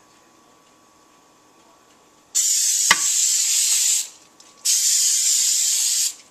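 Aerosol cooking spray hissing onto aluminium sheet pans in two sprays, each about a second and a half long, with a short click during the first.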